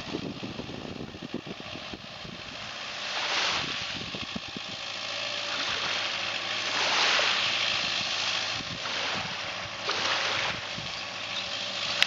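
Small waves washing onto a sandy shore, swelling every few seconds, over the low, steady hum of a tractor's engine.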